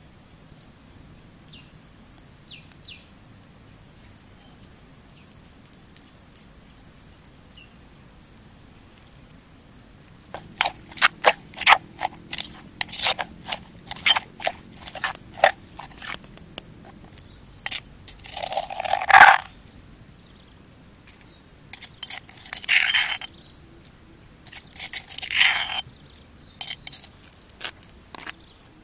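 Metal spoon clicking and scraping against a stone mortar while stirring a wet paste of chopped chilies and tomato. The quick clicks start about a third of the way in, and three longer scrapes come in the second half.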